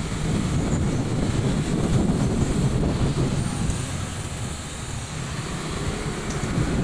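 Low rumbling road noise from a vehicle riding through city traffic: engine and tyre noise with wind buffeting the microphone.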